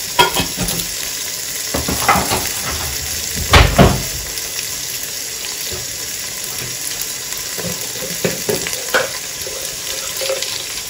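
Oil sizzling steadily in a pressure cooker as whole spices, onion, garlic and poppy seeds fry in it. A few kitchen knocks and clatters cut in, the loudest a pair of thuds about three and a half seconds in.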